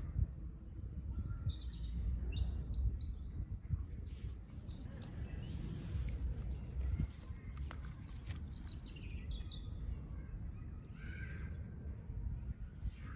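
Birds chirping in short scattered calls over a steady low background rumble, with a few faint clicks.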